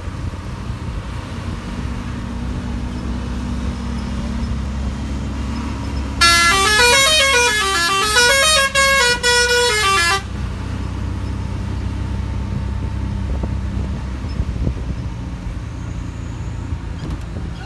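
Bus engine running with a steady low drone. About six seconds in, a musical horn plays a stepped tune, its notes going down and up, for about four seconds.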